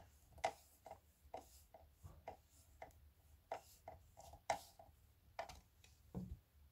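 Faint, short clicks or taps, roughly two a second and not quite evenly spaced, the loudest about four and a half seconds in.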